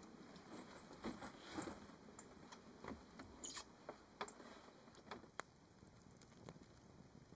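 Faint scattered clicks, knocks and rustles as someone climbs a folding ladder into a truck's rooftop tent, busiest in the first five seconds, with one sharper click a little after five seconds.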